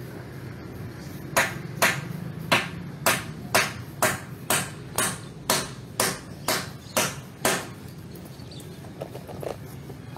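Hammer blows on the wooden eave timbers of a tiled roof as the overhang is taken apart: about thirteen sharp strikes at roughly two a second, stopping before the end, followed by a few fainter knocks.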